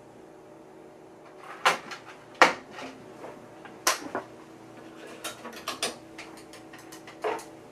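Sharp clicks and clacks from handling the IMSAI 8080: two loud clacks about two seconds in, then a quicker run of clicks from its front-panel paddle toggle switches, over a faint steady hum.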